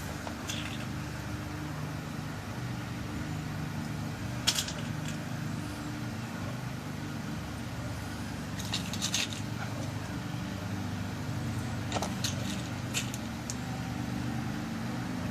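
Small metal clicks and taps as new pin tumblers are loaded one by one into a lock cylinder: a single click, then a short cluster, then a few more near the end. A steady low hum runs underneath.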